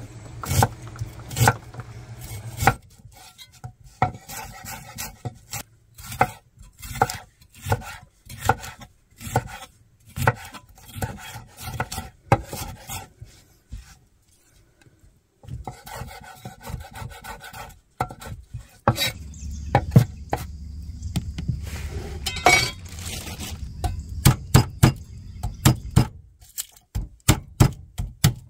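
Chef's knife chopping vegetables on a wooden cutting board: runs of quick, sharp knocks of the blade hitting the wood, with a short pause about halfway.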